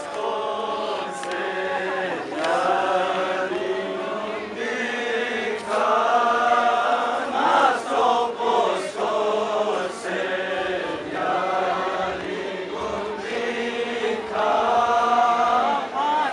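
A group of men chanting a Balti-language noha, a Shia mourning lament, in long sung phrases that rise and fall, with a few sharp knocks now and then.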